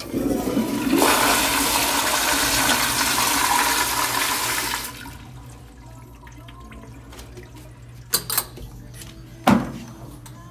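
Vortens Vienna Flux toilet flushing through its flushometer valve: a loud rush of water that starts abruptly and stops after about five seconds. A few sharp clacks follow near the end.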